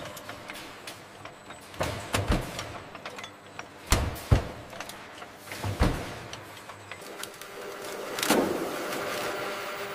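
Wine bottling-line corking machine running: sharp mechanical clunks, several in pairs, over a steady machine hum, then a swelling hiss near the end.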